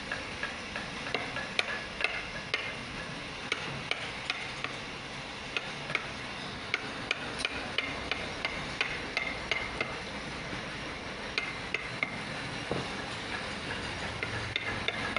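Wooden mallet tapping a carving chisel into a hardwood panel: light, sharp taps at an irregular pace, about one or two a second, over a steady background hiss.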